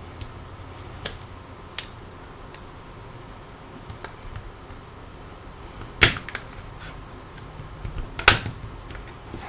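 Sharp plastic clicks and snaps as a metal spudger pries around the edge of a smartphone's plastic housing, popping its retaining clips loose: two light clicks in the first couple of seconds, then two louder snaps about six and eight seconds in.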